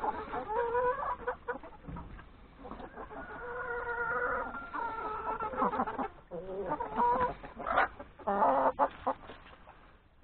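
A flock of chickens, hens and roosters, clucking and calling over one another, with one longer drawn-out call in the middle.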